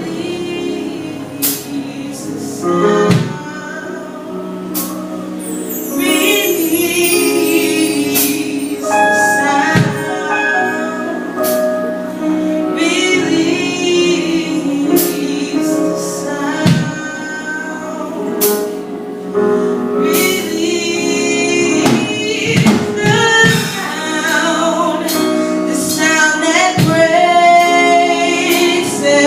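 Gospel worship music: singers, mainly female voices with a choir, singing over held chords with occasional sharp percussive hits.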